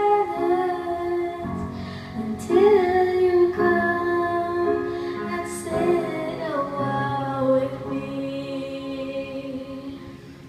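A young girl singing a slow ballad into a karaoke microphone over a backing track, holding long notes; it grows quieter near the end.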